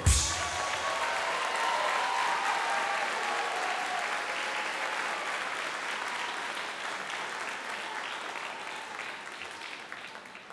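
The music stops on a final hit, and audience applause follows, dying away near the end.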